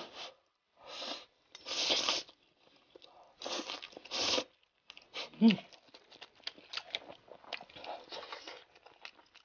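A person slurping noodles in several noisy sucks over the first four seconds or so, then chewing the mouthful with many small wet smacks.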